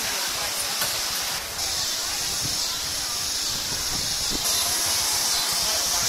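Fairground ambience: a steady high hiss with faint crowd voices underneath. The hiss grows louder about a second and a half in and again past four seconds.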